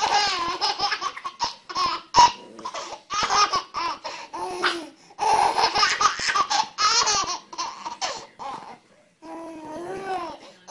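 A baby laughing in several runs of short laughs, with brief pauses between them; the last run, near the end, is quieter.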